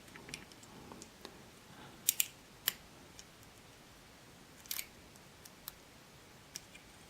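Lock pick and tension wrench working the pins of a 5-pin pin-tumbler deadbolt: a scattering of small, sharp clicks, a quick pair about two seconds in, with single clicks following every second or so. These are pins being raised and set during single-pin picking.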